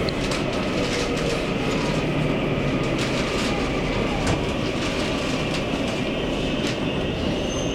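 Taiwan Railways EMU800 electric multiple unit heard from inside the carriage as it runs: a steady rumble with irregular sharp clicks of the wheels over the rail joints. A thin high whine comes in near the end.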